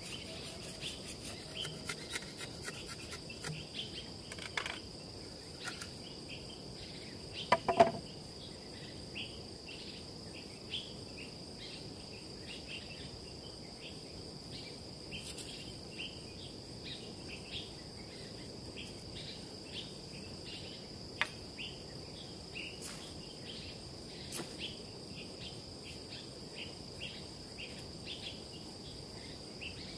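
Forest insects droning on one steady high note, with scattered short chirps. A loud cluster of knocks comes about eight seconds in, and a few fainter clicks follow later.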